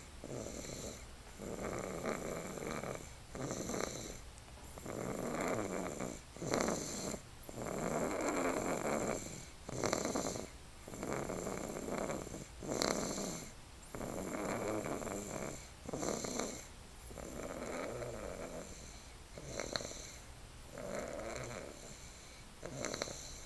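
Snoring: rough, rattly breaths repeating steadily about every one to two seconds, with short quiet gaps between them.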